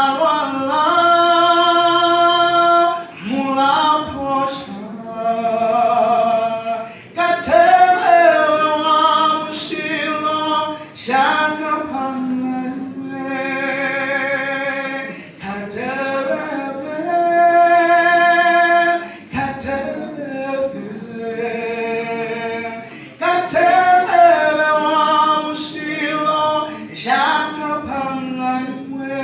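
Voices singing a gospel song in church, holding long notes in phrases of a few seconds each.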